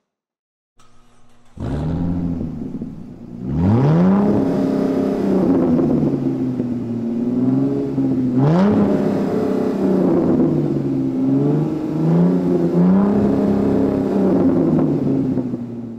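Car engine revving. It starts about two seconds in, climbs sharply in pitch about three and a half seconds in and again about eight and a half seconds in, holds high, and sags back between the blips.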